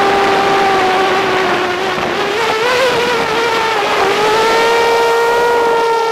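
FPV drone's electric motors and propellers whining at a steady pitch over a rushing hiss. The pitch wavers and dips in the middle, then rises a little and holds as the throttle changes.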